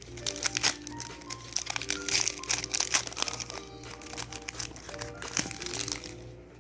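Foil wrapper of a mini Pokémon card booster pack crinkling as it is torn open and handled, thickest in the middle, over background music.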